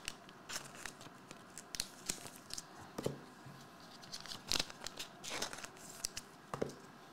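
Hands handling trading cards and plastic card sleeves: irregular short rustles and clicks as cards slide against each other, with a few louder ones through the middle.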